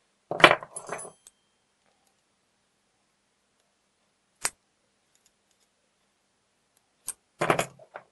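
Small metal parts clicking and clattering as an ABUS XP1 lock cylinder is handled with pliers and its key: a short clatter with a brief metallic ring near the start, a single sharp click about halfway, and another short clatter near the end.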